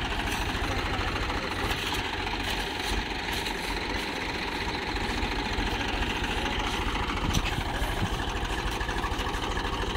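Swaraj tractor's diesel engine running steadily with a fast, even chugging, hauling a loaded trolley through deep sand. A short sharp click sounds about seven and a half seconds in.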